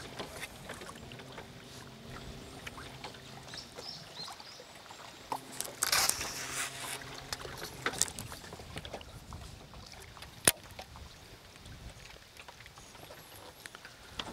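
Water lapping and trickling around a bass boat, with a brief splash about six seconds in and a single sharp click about ten seconds in.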